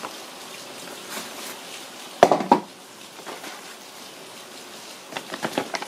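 Heavy kraft-paper shopping bag crinkling and rustling as it is handled, with a loud crumple about two seconds in and a quick run of crackles near the end.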